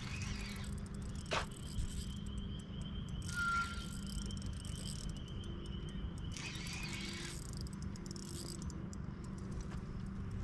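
Insects chirring outdoors: a steady high trill that stops about six seconds in, with two short bursts of buzzing. A brief whistled note comes about three and a half seconds in, all over a constant low rumble.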